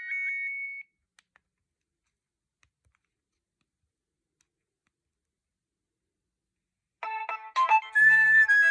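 Nokia 6610 mobile phone ringtones: one tune ends on a held high note under a second in, followed by two faint clicks and several seconds of silence. Near the end another ringtone melody starts, several notes sounding together.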